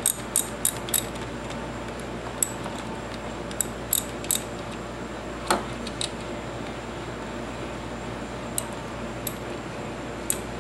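Scattered sharp metallic clicks and clinks from a hand socket ratchet and cam cap bolts being snugged on a motorcycle cylinder head. There are several quick clicks at the start, then single clicks every second or so, over a steady low hum.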